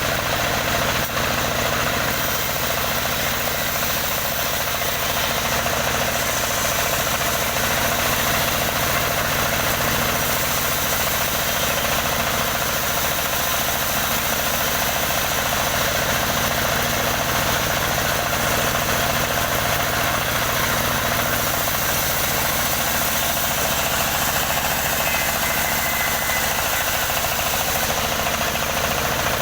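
Engine-driven wood saw running steadily and continuously, a constant engine drone with no breaks.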